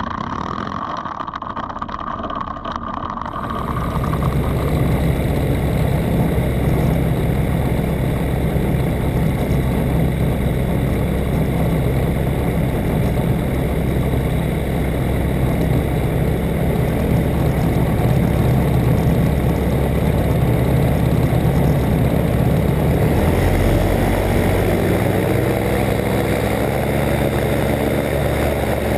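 Aeroprakt A22 Foxbat light aircraft's engine and propeller idling on the ground, a steady low running note. A quieter stretch with a thin steady whine comes first, the engine sound fills in at about four seconds, and the engine speed shifts slightly past the twenty-second mark.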